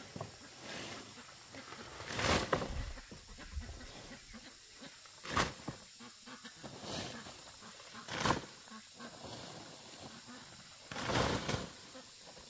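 Cut leafy branches rustling and swishing as they are dragged and tossed onto a pile, in about five separate bursts, two of them longer than the rest.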